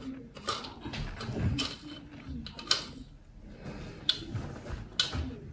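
A handful of sharp clicks and light knocks, about five spread over a few seconds, as small hard objects are handled.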